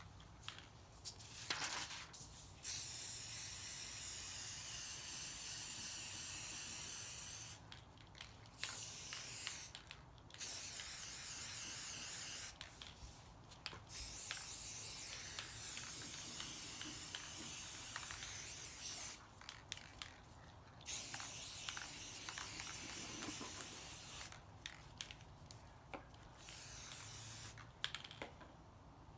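Aerosol can of paint-and-primer spray paint hissing in about six bursts, each one to five seconds long, with short pauses between.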